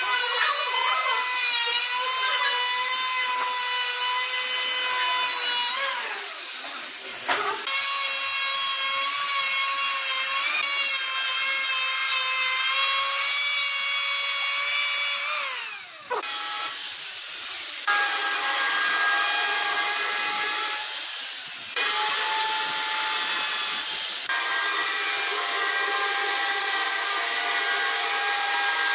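Handheld electric power tools working hardwood. A high-pitched whining tool runs twice, for about six and then about eight seconds, and each time winds down as it is switched off. From about halfway, a handheld electric router runs steadily with a cutting hiss as it machines the edge of a wooden door frame.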